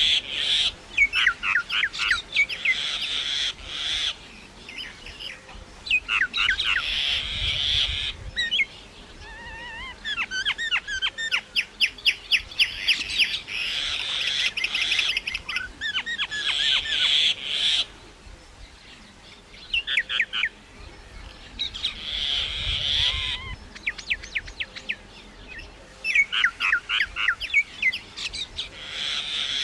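Myna calling: bursts of harsh, squawky chatter mixed with quick runs of sharp, rapid notes, coming in bouts every few seconds with short pauses between.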